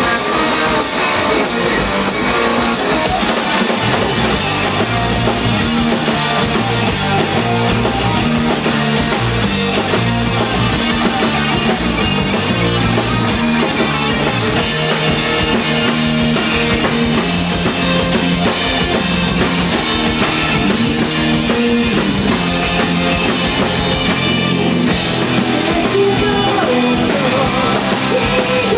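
Live rock band playing loudly and steadily: electric guitars, bass guitar and a drum kit.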